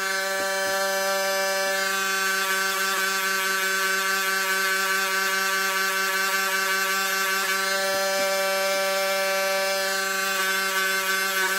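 Handheld rotary tool running steadily at full speed, its small wire brush wheel scrubbing leftover vinegar-loosened crust off small screws. A steady motor whine with faint scratchy contact from the brush.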